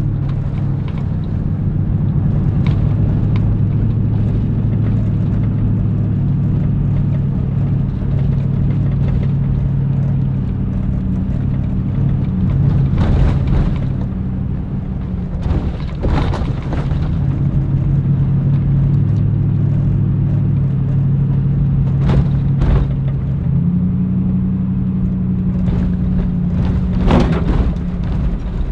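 Inside the cab of a 2011 Toyota Tundra pickup driving slowly over a rough forest road: a steady low engine and road drone whose pitch steps up and down a few times. A handful of sharp knocks and rattles from bumps in the road are scattered through it, the loudest near the end.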